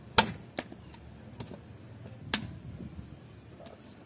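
Hand-forged meat cleaver, made from leaf-spring steel, chopping into a wooden branch on a stump. Two sharp chops come about two seconds apart, with a few lighter knocks between them.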